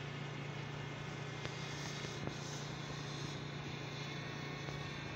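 Small quadcopter drone hovering, its propellers giving a steady hum.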